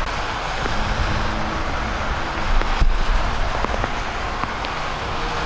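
Vehicles running through shallow floodwater on a road, heard as a steady wash of engine, tyre and water noise with a low rumble.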